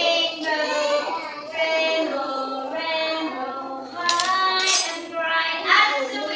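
A group of young children singing a song together, holding long notes.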